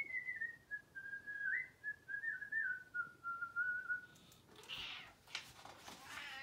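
A person whistling a single wavering line that slides and steps downward in pitch for about four seconds, with one jump back up partway through. It is followed by soft rustling as the picture-book page is handled and turned.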